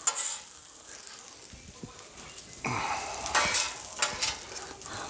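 Shrimp fried rice sizzling on a Blackstone flat-top griddle as it is stirred and mixed, with a few louder scraping strokes in the second half.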